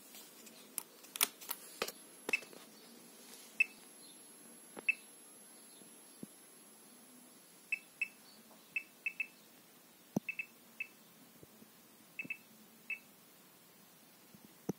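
Pripyat Geiger-counter dosimeter beeping at irregular intervals, a short high beep for each particle it counts, sometimes two in quick succession. A few sharp clicks of its switches come about a second in.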